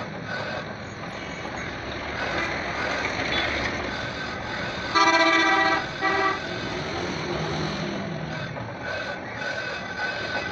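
A vehicle horn honks twice about halfway through, a long honk then a short one, over a steady background of traffic noise.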